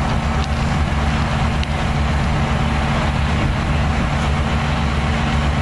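A large vehicle engine idling steadily: a low, even hum with a steady hiss over it.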